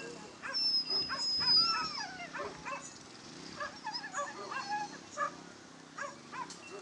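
Dogs yelping and whining excitedly, many short high yips in quick succession with a long high whine about half a second in, over a steady low hum.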